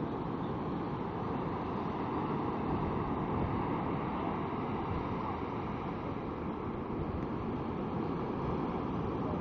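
Heavy storm surf breaking and washing up the beach: a steady rush of noise, with wind buffeting the microphone.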